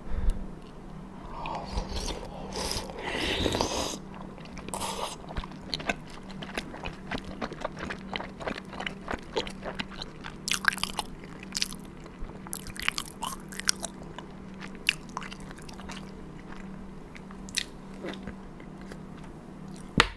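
Close-miked eating of dumpling soup: wet chewing and mouth clicks from a dumpling, with long slurps of hot beef-bone broth a couple of times.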